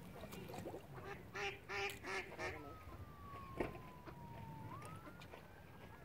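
Mallard duck quacking, about four harsh quacks in quick succession.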